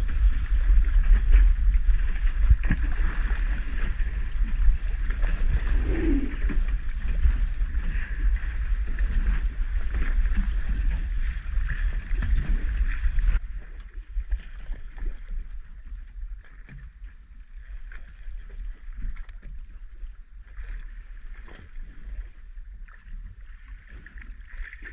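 Wind buffeting the microphone and choppy water slapping against a small boat's hull. About halfway through, the sound drops abruptly to quieter water lapping and light wind.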